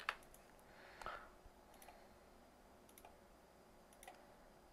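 A few faint computer mouse clicks, about five single clicks spaced roughly a second apart, over near silence.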